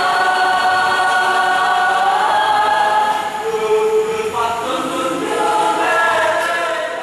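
Mixed choir of young women and men singing in harmony, holding long chords. The sound dips a little about three seconds in, then swells again with a fuller chord.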